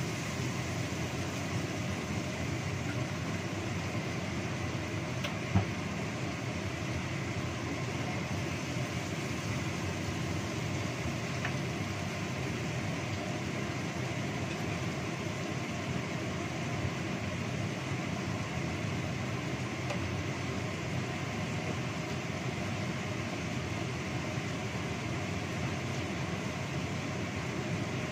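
Ground chilli and spice paste sizzling steadily as it fries in oil in a wok, with a single sharp knock about five and a half seconds in.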